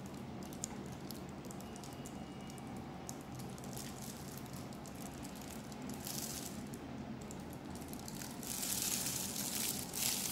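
Chocolate sauce squeezed from a plastic squeeze bottle: squishing and rattling over a steady low hum, with bursts of hissing rustle about six seconds in and again from about eight and a half to ten seconds.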